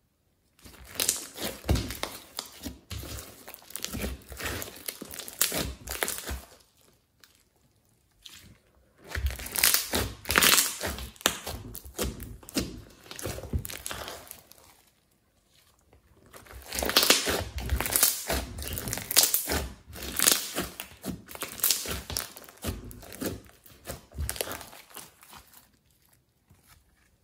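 Sticky slime mixed with small foam beads being stretched, poked and squished by hand, giving wet crackling and popping. It comes in three stretches with short silent pauses between them.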